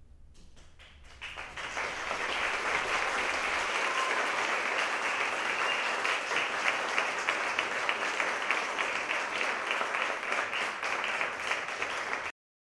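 Audience applause at the end of a stage performance. It starts with scattered claps, swells within about two seconds into steady, dense clapping, and cuts off suddenly near the end.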